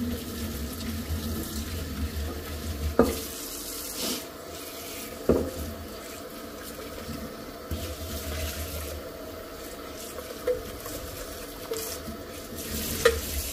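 Tap water running into and splashing around a stainless steel pot as it is rinsed in a sink. A few sharp metallic knocks come as the pot is handled, the loudest about three and five seconds in and near the end.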